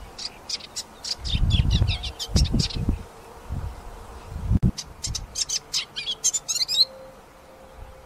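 Sedge warbler singing: two runs of short, rapid chattering notes, the second ending in fast trills about seven seconds in. Low muffled thumps sound under the first run and once in the pause between the runs.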